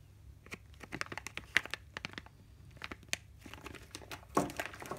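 Clear plastic bag crinkling as it is handled, in irregular crackles, with a denser flurry about four and a half seconds in.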